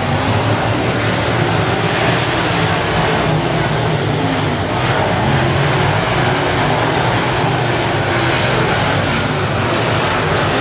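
Semi late model dirt-track race cars running at speed, their engines making a loud, steady drone with no break.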